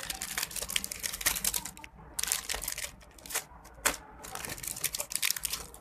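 Plastic packaging crinkling as it is handled and torn open, in several bursts of rapid crackles.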